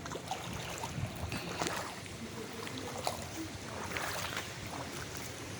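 Steady rushing wash of running floodwater.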